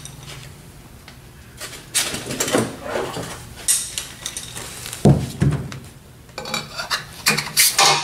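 Metallic clinks and clatter as liquid-nitrogen-frozen cylinder sleeves are handled and set into the cylinders. There are several sharp strikes, a dull knock about five seconds in, and a faint low hum underneath.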